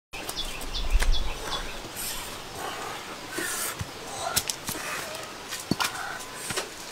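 Footsteps and rustling through dry leaves and twigs, with scattered sharp snaps and a few short high chirps near the start.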